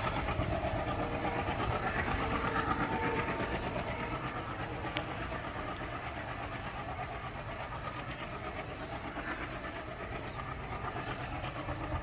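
A departing train's rumble and wheel clatter, steady and slowly fading.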